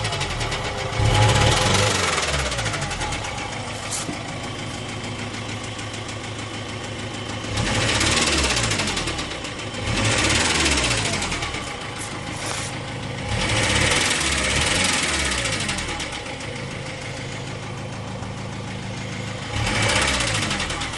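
2004 Ford Transit TDCi diesel engine idling and being revved up and back down about five times, with a knock attributed to a worn big end bearing.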